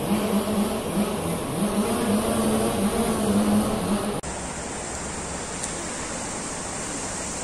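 A motor's low, steady-pitched drone that cuts off abruptly about four seconds in, giving way to an even rushing hiss of water from fountain jets.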